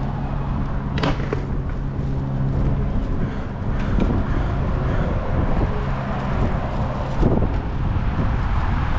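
Street traffic, with a motor vehicle's engine running steadily close by. There is a sharp click about a second in and another about seven seconds in.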